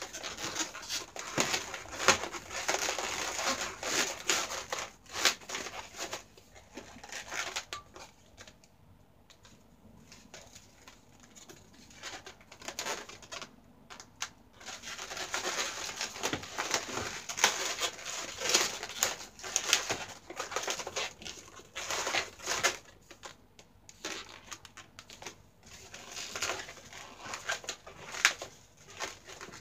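Inflated latex modelling balloons squeaking and rubbing against each other as they are twisted and woven together, in irregular bunches with a quieter spell in the middle.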